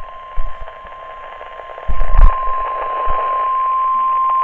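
NOAA Weather Radio warning alarm tone: one steady 1050 Hz pitch heard through a weather radio's static hiss, the signal that a new warning broadcast is about to follow. A couple of dull thumps break in, the louder about halfway through, where the tone grows louder and cleaner.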